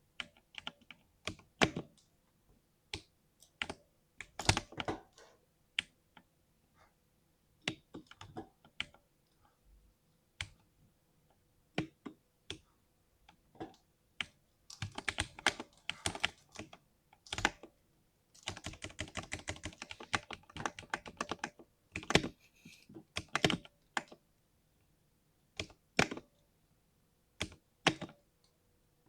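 60% mechanical keyboard being typed on, the keys giving a deep thock. It starts as single keystrokes and short runs, turns into two stretches of fast continuous typing about halfway through, then goes back to scattered keystrokes.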